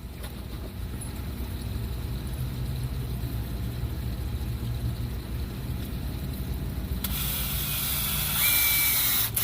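Road vehicle engine rumbling and slowly growing louder, with a loud hiss in the last couple of seconds that cuts off suddenly.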